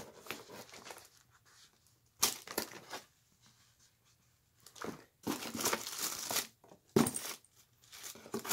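Paper and cardboard rustling and crinkling as a Burmese cat pokes about an opened box of cat toys and packing, in several irregular bursts with quiet gaps between.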